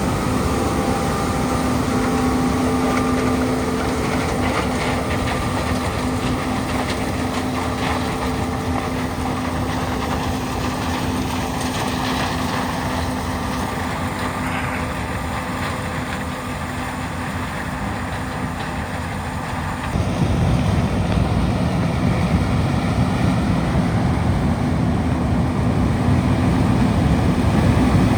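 Large diesel farm machinery running steadily, with a steady whine over the engine rumble. About twenty seconds in, the low rumble abruptly gets louder.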